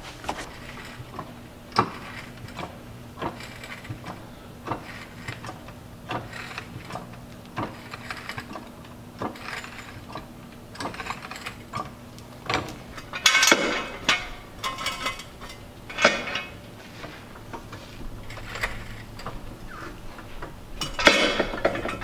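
Hydraulic floor jack being pumped by its long handle to lift a car, a short mechanical clack on each stroke, about one stroke every three-quarters of a second. Louder clattering comes in a cluster a little past halfway and again near the end.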